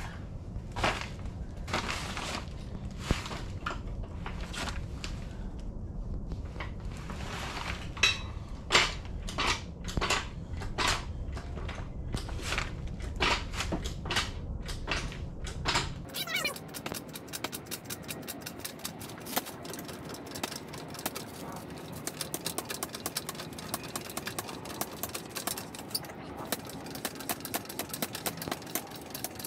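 Hydraulic floor jack being pumped under load, squeaking with each stroke of the handle at about two strokes a second, with a short pause partway. About halfway through it gives way to a faster, steadier run of light clicks.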